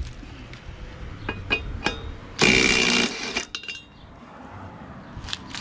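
Light metal clinks of tools, then a cordless power tool runs in one short burst of under a second, spinning the loosened flywheel nut off a Briggs & Stratton Quantum lawn mower engine, followed by a few more clinks.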